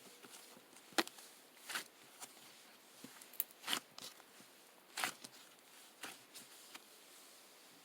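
A scattered series of short clicks and rustles, irregularly spaced, the sharpest about a second in.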